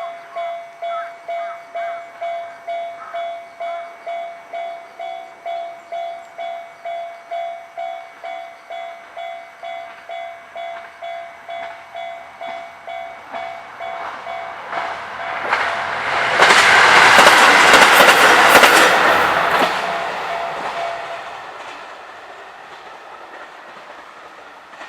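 Japanese level-crossing alarm ringing its repeating electronic bell, about two strikes a second, as a diesel train approaches and passes over the crossing. The train is loudest a little past the middle and the sound fades over several seconds, with the bell stopping as it clears.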